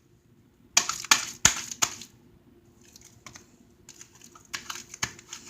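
Sticky homemade slime being squished and pulled apart by hand, giving a cluster of sharp crackling pops about a second in, then fainter, scattered crackles.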